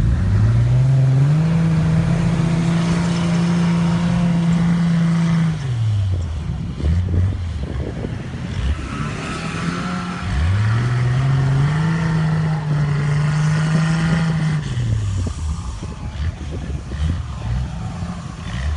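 An off-road 4x4's engine revving hard twice. Each time it climbs to high revs, holds there for about four seconds, then drops back.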